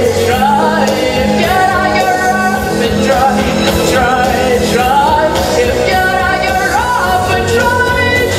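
A girl singing a pop song into a microphone over a backing track with a steady beat and bass, holding long notes that waver in pitch.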